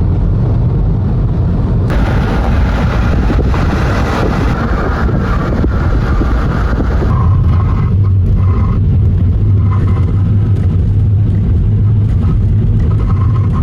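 Car driving along a road, a steady low road-and-engine rumble.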